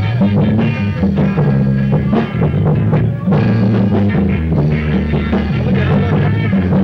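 Rock band music with a prominent bass guitar line and drums keeping a steady beat.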